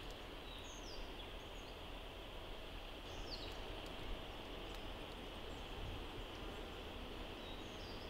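Quiet forest ambience: a steady, even hiss with a few short, high bird chirps that drop in pitch, scattered through it.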